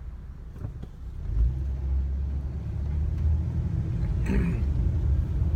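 Low rumble of a vehicle on the move, growing louder about a second in and holding steady.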